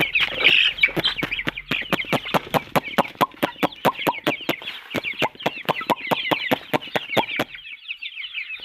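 A flock of young chicks peeping constantly, many short falling cheeps overlapping. A fast run of sharp clicks sounds over them and stops near the end.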